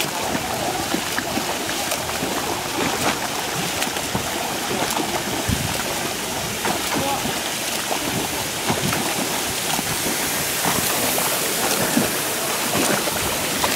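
Front-crawl swimmer splashing through pool water: a steady wash broken by irregular slaps as the arms and kicks strike the surface.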